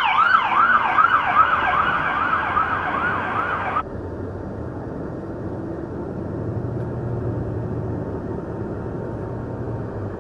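Police car siren yelping, rapid rising-and-falling sweeps about three a second, cutting off abruptly about four seconds in. Then a steady low rumble of road and engine noise heard from inside a moving vehicle.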